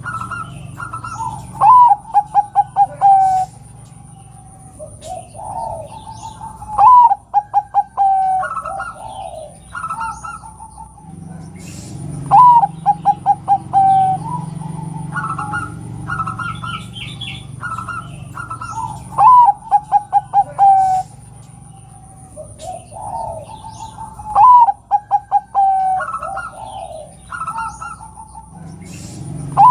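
Zebra dove (perkutut) cooing: each phrase is a rising note followed by a quick run of staccato coos, repeated about every five to six seconds. Fainter chirps of other birds come between the phrases.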